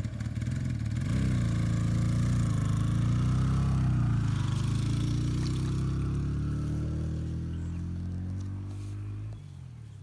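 A motor engine runs with a low, steady hum, its pitch wavering a little; it grows somewhat quieter later and drops off sharply near the end.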